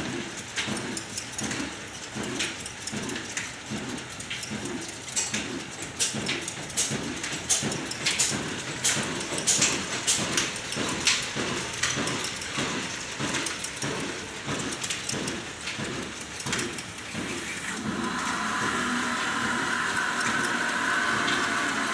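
Old black diesel engine running at slow speed, belt-driving a flour mill: an even, slow beat of about one and a half thuds a second with sharp clicks over it. Near the end a steadier, higher whirr joins in.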